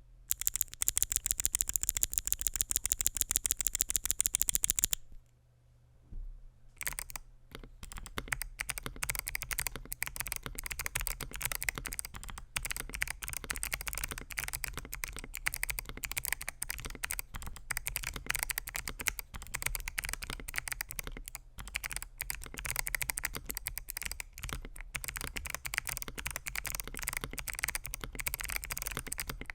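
Typing on an FL.eSports Q75 mechanical keyboard with lubed Kailh BOX Jellyfish clicky switches, polycarbonate plate and polycarbonate keycaps. It starts with a loud, fast, evenly spaced run of key clicks for about five seconds, pauses briefly, then settles into continuous irregular typing.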